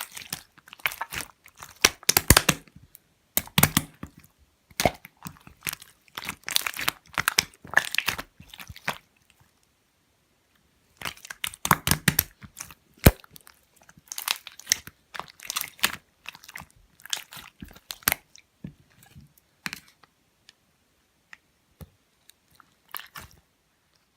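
Pearl slime being squished and pressed by hand, giving bursts of crackling and clicking. The bursts stop for about two seconds near the middle and thin to scattered clicks near the end.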